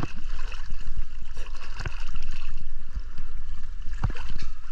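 Choppy sea water sloshing and slapping against a waterproof action-camera housing held at the waterline, with many small irregular splashes over a constant low rumble.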